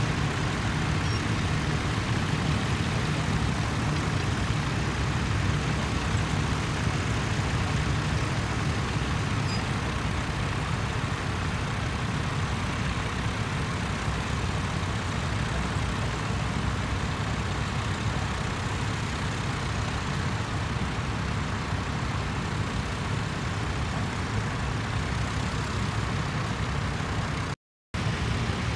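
Tractor engine running steadily under load, with a constant low drone; the sound drops out completely for a moment near the end.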